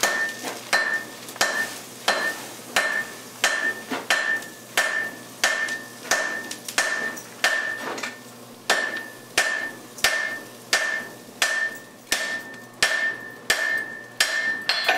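Hand hammer striking a welding-hot tomahawk blade on an anvil, about three blows every two seconds. Each blow carries a bright ring from the anvil. It is the forge weld setting a high-carbon steel bit into the blade.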